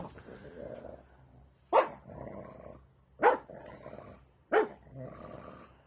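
Pug barking three times, about a second and a half apart, each bark trailed by a short growl.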